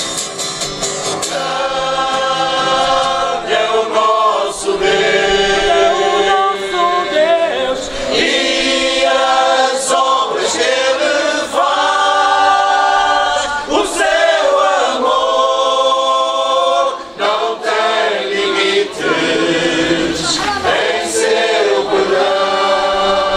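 A men's choir singing together, accompanied by strummed acoustic guitars.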